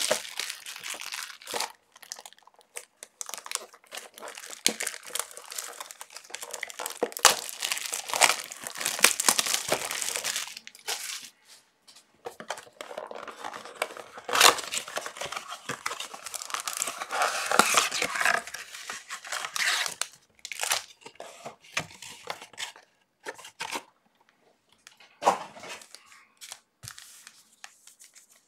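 Trading-card pack wrappers being torn open and crumpled by hand: irregular crinkling broken by sharp rips, with a few quieter pauses between packs.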